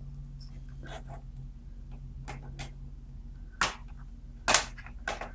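Light clicks and taps of a screwdriver and the plastic casing panels of a Sony Vaio laptop being handled and fitted back on, with two louder knocks about three and a half and four and a half seconds in.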